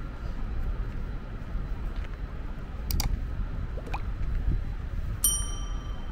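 Outdoor city ambience with a steady low traffic rumble, a couple of sharp clicks about halfway through, and a short high ringing ping near the end.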